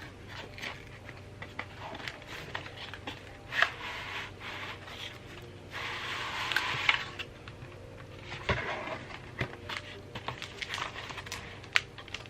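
A Kindle Paperwhite box and its packaging being handled and opened by hand: scattered light taps and clicks, and a longer scraping rub about six seconds in.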